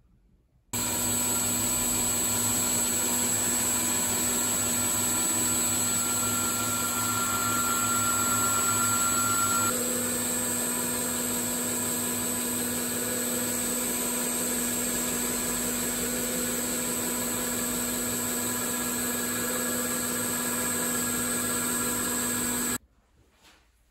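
Schaublin 102 watchmaker's lathe running steadily, a motor hum with a high whine over it. It starts abruptly just under a second in. About ten seconds in, one high whine drops out and the tone shifts slightly. It cuts off abruptly near the end.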